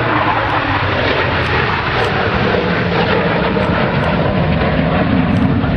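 Jet engines of two Blue Angels F/A-18 Hornets flying past in formation: a loud, steady rush of jet noise.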